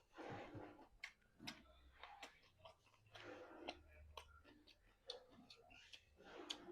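Faint close-up eating sounds: a person chewing fried chicken, with many quick wet mouth clicks and smacks and a few soft breaths.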